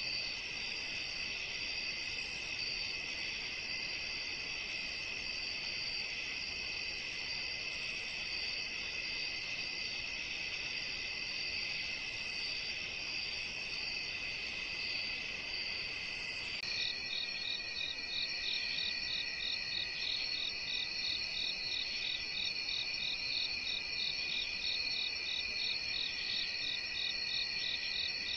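Steady chorus of crickets and other insects, trilling high and continuously. About two-thirds of the way through it switches abruptly to a different chorus with a rapid, evenly pulsing call over the trill.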